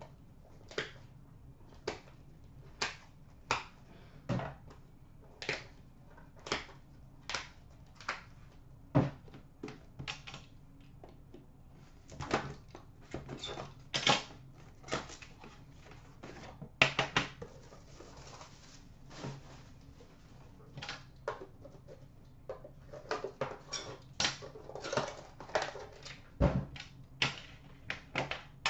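Trading cards and card boxes being handled on a glass countertop. Sharp clicks come about once a second at first, then quicker runs of taps and clatter as a cardboard box and a tin are picked up and opened.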